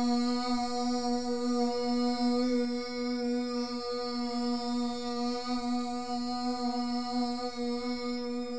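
A single low note held steady as a drone, rich in overtones, running on without a break.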